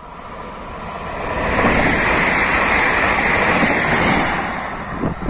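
Passenger train passing close at speed: the rush of wheels on the rails and moving air builds over the first couple of seconds, stays loudest for about two seconds as the cars go by, then fades. A brief thump near the end.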